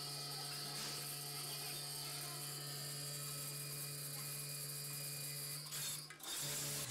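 Automatic packaging machine running: a steady mechanical hum with a high hiss from its feed bowl and weigher, which dips briefly about six seconds in.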